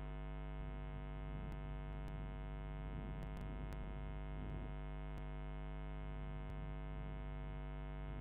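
Steady electrical mains hum with a buzzy stack of overtones, and a handful of faint keyboard key clicks from typing.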